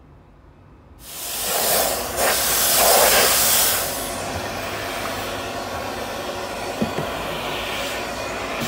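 Steam hissing from the hand nozzle of a self-service upholstery steam-cleaning and disinfection machine as it blasts steam into a car's door and interior trim. The hiss starts suddenly about a second in, is loudest for the next few seconds, then settles into a steady, softer hiss.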